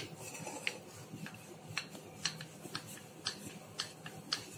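A wooden rolling pin rolling maida dough flat on a stone counter, back and forth, with light clicks about twice a second under a soft rolling rumble.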